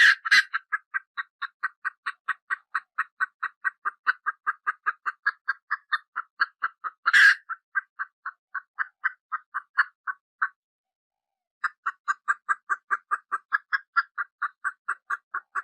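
Baby chick peeping in a fast, even run of short chirps, about four or five a second, breaking off for about a second roughly ten seconds in. Two louder, harsher bursts stand out, one at the very start and one about seven seconds in.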